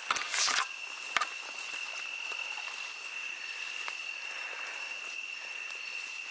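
Night insects trilling on one steady high note. Near the start there is a brief swish of leaves and a few sharp snaps as someone pushes through leafy undergrowth.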